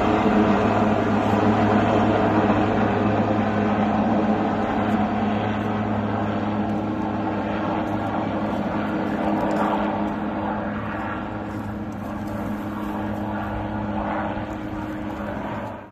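Heavy cargo helicopter in flight with a chairlift tower slung on a long line: a steady, even-pitched rotor and engine drone that fades slowly as it moves away.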